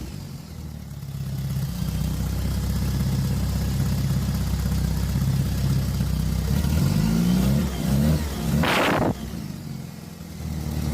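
Fiat 600's four-cylinder engine running steadily, then revved up and down briefly about seven seconds in, with a short loud burst of noise near the nine-second mark.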